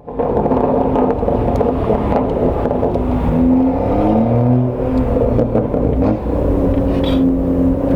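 BMW M2 F87's turbocharged straight-six with aftermarket downpipes, under acceleration. Its pitch climbs from about three seconds in, drops sharply around the five-second mark as it shifts, holds steady, then starts climbing again near the end.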